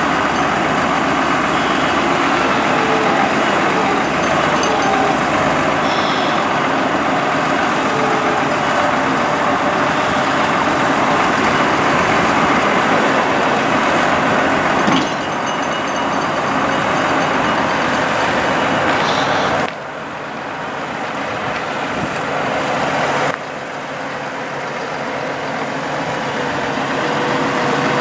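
Dodge 5500 bucket truck's engine running steadily, heard across the lot, with the sound dropping abruptly in level a few times in the second half.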